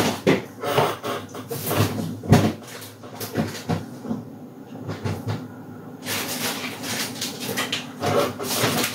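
Refrigerator door being opened and packages handled inside it: a string of knocks and clunks, dropping off for a moment around the middle before the handling noise picks up again.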